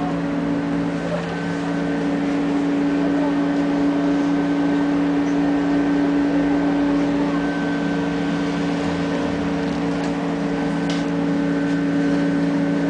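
Tram heard from inside the passenger car while running along the track: a steady electrical hum with several constant tones, over the even rumble of the wheels on the rails.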